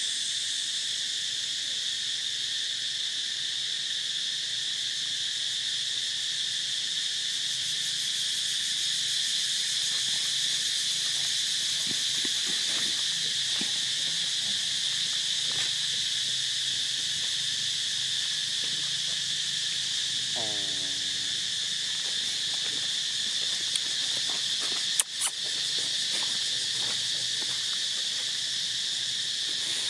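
Steady, high-pitched insect chorus. About twenty seconds in, a short call falls in pitch, and a sharp click sounds a few seconds later.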